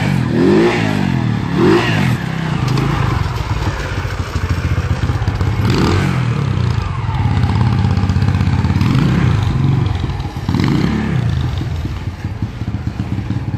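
Quad bike engine running and revving as it is ridden, its pitch rising and falling several times, with strong revs near the start, about six seconds in and again about eleven seconds in.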